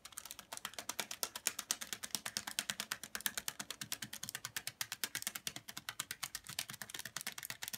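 A white-bellied caique's feet tapping rapidly on newspaper, about ten sharp ticks a second, like fast typing.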